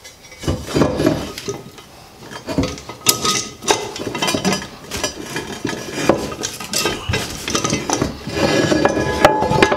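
Irregular metallic clinks and knocks of a steel bar clamp being slid and fitted against a 2x4 and the sink bowl, with the clatter getting busier near the end.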